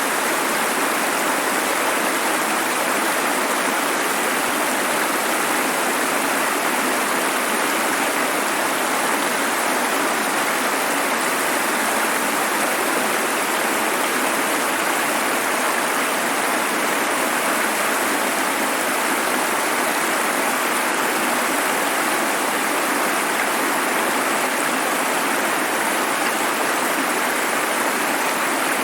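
Running water flowing in a steady, unbroken rush.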